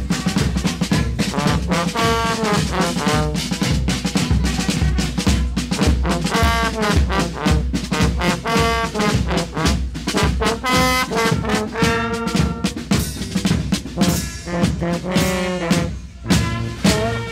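Carnival fanfare band playing a lively tune: trombones and other brass carry the melody over a steady drum beat. The music briefly thins out near the end.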